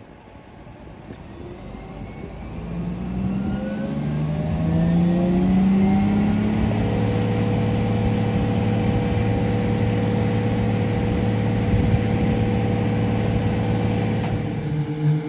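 Motor vehicle engine accelerating, louder and rising in pitch over the first five seconds or so, then holding a steady pitch as it cruises.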